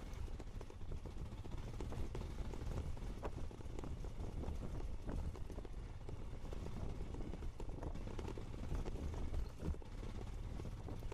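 Royal Enfield Himalayan motorcycle riding over a rutted dirt trail: a steady low rumble with frequent irregular knocks and rattles as the bike jolts over the bumps.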